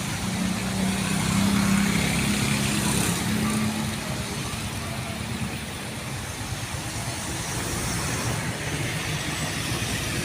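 A bus engine droning as it passes on the road, loudest in the first few seconds, then fading into steady traffic noise.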